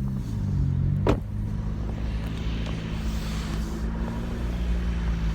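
Car engine idling with a steady low hum, its pitch shifting briefly near the start. One sharp click comes about a second in.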